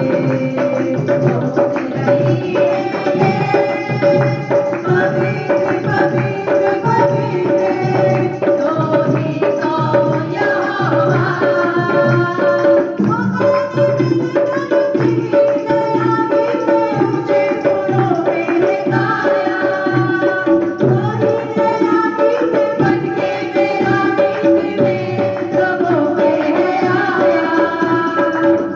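Indian devotional worship-song music: a tabla-style hand-drum rhythm under a steady held tone and a bending melody line.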